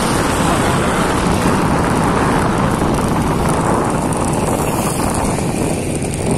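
Steady road noise from a moving vehicle on a wet road: tyres hissing and wind rushing past the microphone. It eases a little near the end as the vehicle slows.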